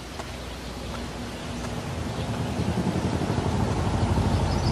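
Engine running with a low, fast-pulsing rumble, fading in and growing steadily louder.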